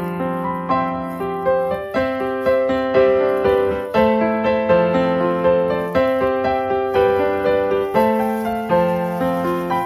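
Background piano music: a gentle tune of struck notes, each fading after it is played, over chords that change about once a second.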